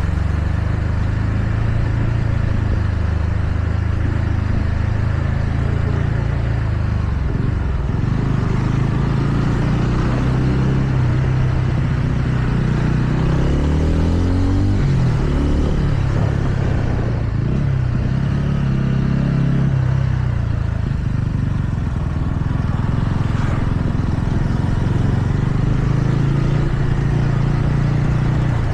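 TVS Ronin's single-cylinder engine running under way on a ride. Around the middle, the engine note climbs and then drops, as when the rider accelerates and shifts gear.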